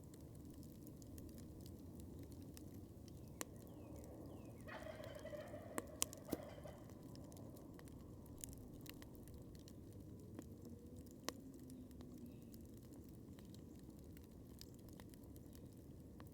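A wild turkey gobbles once, about five seconds in, a rapid call lasting about two seconds. Under it a wood campfire crackles steadily with occasional sharp pops.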